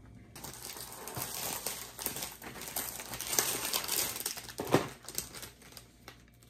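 Candy packaging being handled and opened: a wrapper crinkling and rustling steadily, with one louder snap about five seconds in.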